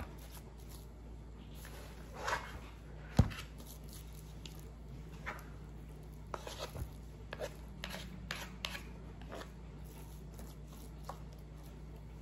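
A utensil scraping and tapping in a pan as dressing is spread out: scattered soft scrapes and light knocks, with one sharper knock about three seconds in.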